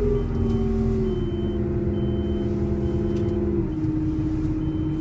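A vehicle engine running steadily, its speed dropping a step about a second in and again near the end, with faint short high beeps about once a second.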